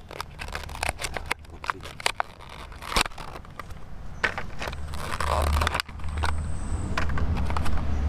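A toy's clear plastic blister pack crackling and crinkling, and its cardboard backing card tearing, as it is opened by hand: a quick run of sharp crackles and scrapes. A low rumble runs underneath from about halfway through.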